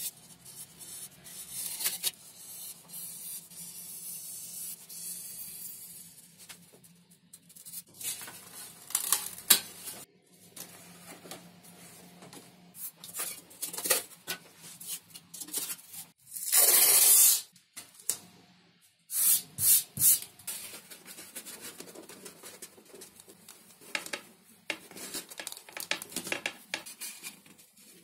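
Close-up handling sounds of foam model building: a craft knife slicing through a paper template, then paper and 5 mm XPS foam sheets rustling, scraping and clicking as they are moved and pressed. A louder scraping noise lasting about a second comes a little past halfway.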